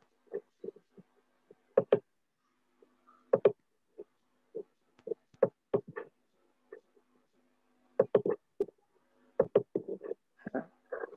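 Computer mouse clicks and keyboard keystrokes: irregular sharp clicks coming in small clusters, with brief pauses between them, over a faint steady hum.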